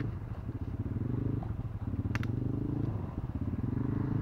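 CFMoto ATV's single-cylinder engine working through deep mud, revving up and easing off a couple of times, with a sharp click about two seconds in.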